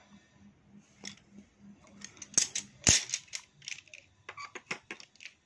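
Pencils being handled, clicking and tapping against each other and the tabletop: two sharp clicks between two and three seconds in, then a run of lighter clicks.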